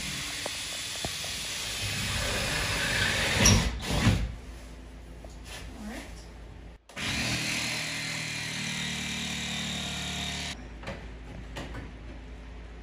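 A power tool cutting a hole through the roof sheathing from below. It makes a steady, rough cutting noise with a motor hum under it, in two long runs with a short break about halfway, and quietens a little before the end.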